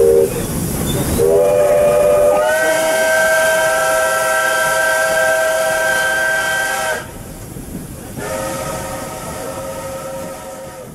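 Л-class steam locomotive's whistle, blown by pulling the whistle rod from inside the cab: a brief toot, then a long blast of several tones that climbs in pitch as the valve opens and holds steady, and after a short pause a second blast that fades out near the end, with steam hissing underneath.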